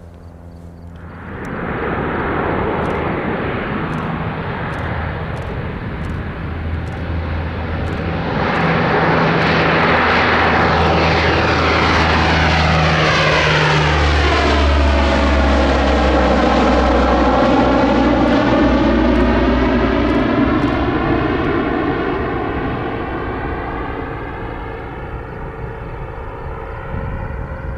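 Twin-engine propeller aircraft climbing out and passing overhead: engine and propeller noise jumps up about a second and a half in, grows louder around eight seconds, and sweeps in pitch as the aircraft passes over, easing off near the end.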